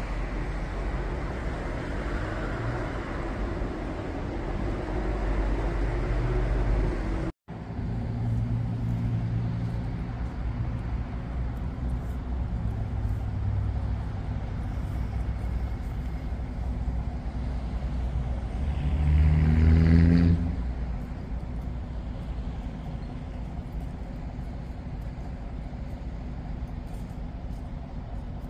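A vehicle engine running, its pitch rising over the first several seconds. After a sudden break the engine hum goes on steadily, then swells louder for a moment about twenty seconds in.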